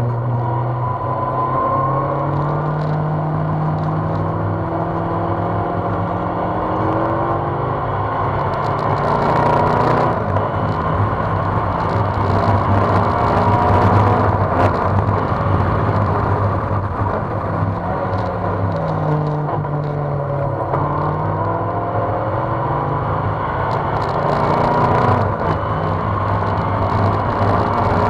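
Engine of an open-cockpit sports car heard on board at speed, its pitch rising and falling repeatedly as it accelerates, changes gear and lifts off, with a rush of wind and road noise over the open cockpit.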